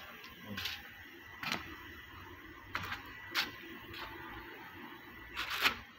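About five short scuffs and rustles, the loudest near the end, over a faint steady high-pitched tone.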